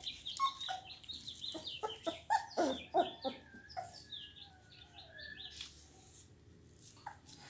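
Young blue pit bull puppies whimpering and squealing in short, falling cries, loudest a couple of seconds in, over runs of quick, high, chirping peeps.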